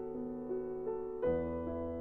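Background music: soft piano or electric piano playing sustained chords, a new chord struck about a second in.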